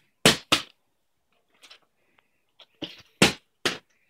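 Plastic water bottle, partly filled, hitting a hardwood floor in a failed bottle flip: two sharp knocks just after the start as it lands and falls over, then three more knocks near the end.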